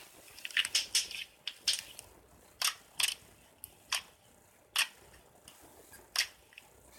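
Slime being squeezed and poked, making sharp, crisp crackling pops. A quick cluster comes about a second in, then single pops about once a second.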